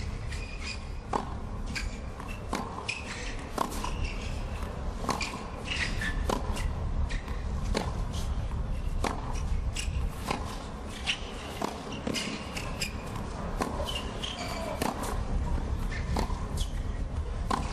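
Tennis rally on a hard court: regular sharp pops of racket strings striking the ball, a little over a second apart, back and forth about a dozen times. Between the strikes, players' shoes scuff and squeak on the acrylic surface over a low, hushed crowd.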